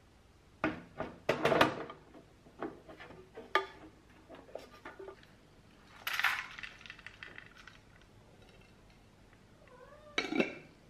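Sharp clicks and knocks from a bread maker and its nut dispenser being handled, then a short rattle of pecans and pine nuts dropped into the plastic dispenser about six seconds in. Near the end a cat gives a short meow, followed by another knock.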